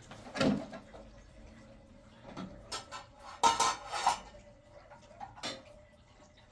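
Kitchenware being handled: a handful of separate clanks and clatters, the loudest cluster a little past the middle.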